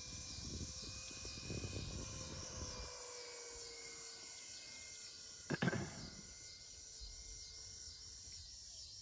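A distant radio-control model airplane's engine, heard faintly, its pitch slowly dropping as it throttles back. There is a short thump about five and a half seconds in, under a faint high, rhythmic chirping.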